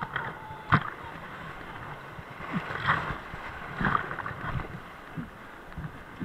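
Whitewater rapids rushing and churning against the side of a raft, with several sudden sharp splashes. The loudest splash comes about three-quarters of a second in.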